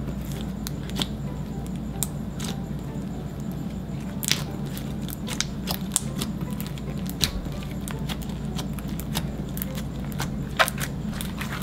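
Clear slime being kneaded and folded by hand as gold pigment powder is worked into it, giving irregular sharp clicks and little pops as the slime is pressed and pulled.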